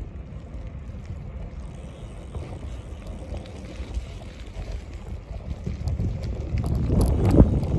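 Wind buffeting the microphone of a moving bicycle, a low rumble that grows louder over the last couple of seconds.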